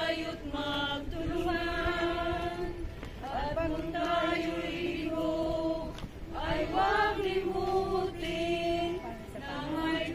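A group of voices singing slowly together, holding long notes in phrases a few seconds long with short breaks between them.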